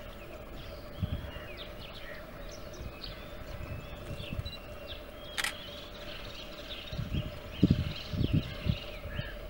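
Small birds chirping and calling in short rising and falling notes over a steady low hum, with a sharp click about halfway and a cluster of dull low thumps near the end.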